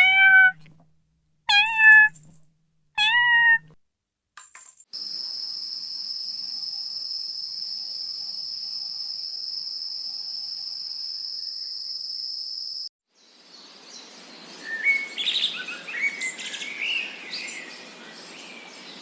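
Three cat meows about 1.5 s apart, each starting high and dropping to a level pitch, followed by a steady high-pitched whine lasting about eight seconds and cut off suddenly, then bird chirps over a hiss.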